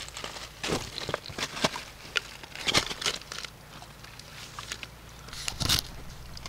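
Irregular clicks and crackling rustles close to the microphone, the noise of a small camera being handled or moved against, with a louder rustle near the end as the camera is picked up and swung round.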